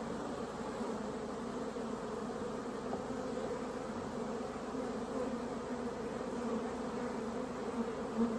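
Honeybees buzzing around an opened hive during an inspection: a steady, dense hum.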